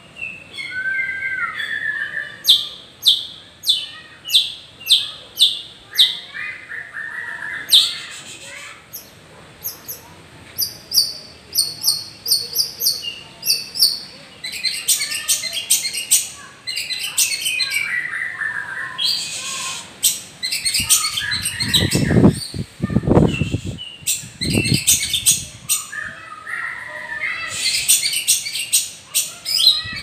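White-rumped shama (murai batu) singing a long varied song: runs of sharp repeated notes, whistled slurs and fast rattling trills. A few low thuds sound about two-thirds of the way through.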